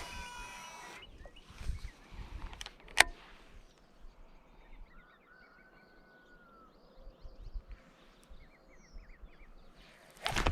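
Birds calling faintly outdoors: short chirps and a few gliding whistles, with a quick run of short notes near the end. A few sharp knocks come in the first three seconds, and a louder burst of noise comes right at the end.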